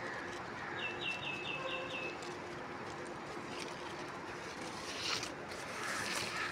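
Birds calling: a quick run of about six short, high, falling chirps about a second in, then more scattered calls near the end, over a steady outdoor hiss.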